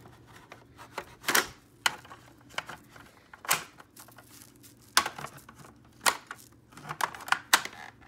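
Plastic handling noises from a Hoover Elite upright vacuum's flexible hose being fitted back onto the machine and clipped into its hose holder, with the motor off: about eight irregular clicks and knocks with some rubbing between them.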